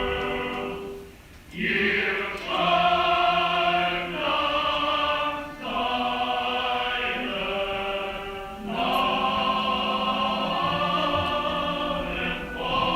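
Film soundtrack choral music: a choir holding sustained chords that shift every second or two, with a short fade and swell about a second in. It is played through a cinema's sound system.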